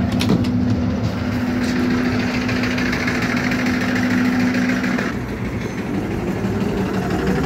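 YuMZ-T2 trolleybus standing at a stop with a steady electrical hum and a hiss, which both cut off about five seconds in. It then pulls away with a rising traction-motor whine.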